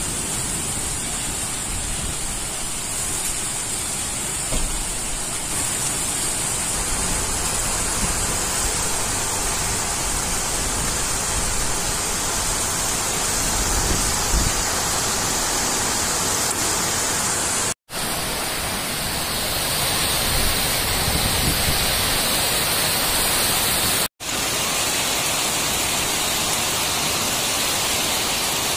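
Heavy rain pouring down steadily, a dense even hiss, with two brief gaps of silence in the second half.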